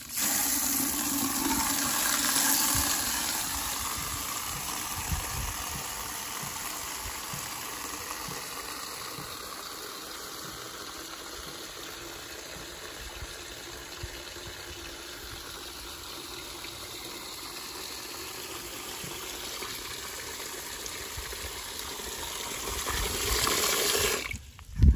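Water running into a bucket as it fills: a steady rush that starts suddenly, is loudest at first, softens through the middle, grows again near the end and stops abruptly about a second before the end.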